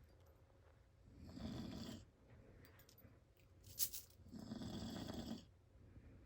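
A man snoring: two long snores about three seconds apart, with a single sharp click just before the second.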